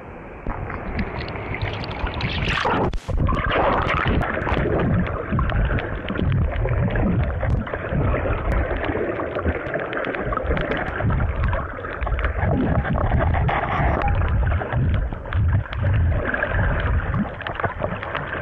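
Water splashing as a handheld camera goes under about three seconds in, then a muffled underwater rush and gurgle of water against the camera as a snorkeler swims hard, with uneven low thumps.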